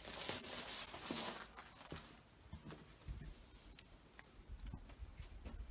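Handling noise: a rustle for about two seconds, then scattered light clicks and taps over a low rumble.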